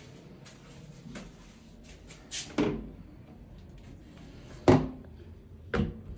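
A handful of hard clunks and knocks in a small, echoing room: two close together about a third of the way in, the loudest about three-quarters in, and one more near the end.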